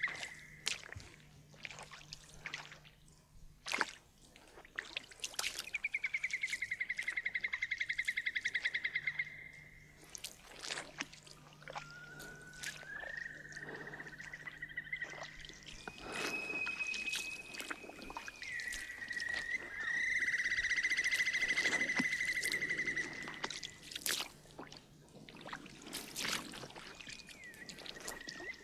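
Outdoor wildlife ambience: high, fast-pulsing trills held for several seconds at a time, the strongest about two-thirds of the way in, with scattered chirps and ticks between them.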